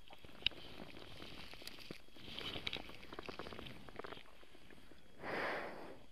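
Handling noises over dry leaf litter: crackling rustle and light clicks as a steel camping mug is picked up, then a short breathy whoosh about five seconds in.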